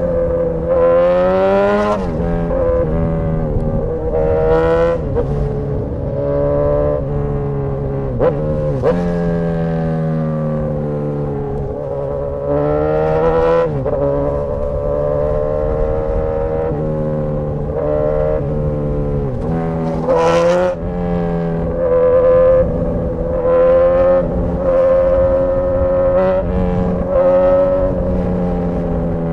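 Straight-piped Suzuki GSX-S1000 inline-four engine, loud with no mufflers, in city riding. The exhaust note climbs under throttle and drops at each shift, with several sharp revs, the strongest about twenty seconds in, and steadier cruising between.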